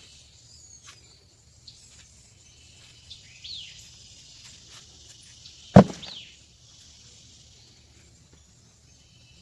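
Outdoor ambience of a steady high insect drone with a few short falling bird chirps. A single sharp knock comes a little before six seconds in and is the loudest sound.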